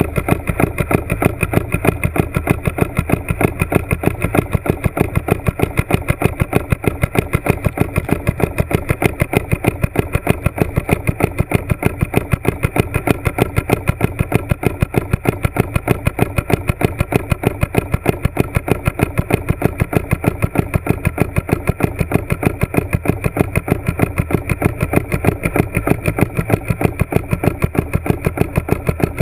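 A motor running steadily with an even, fast pulsing beat that does not change.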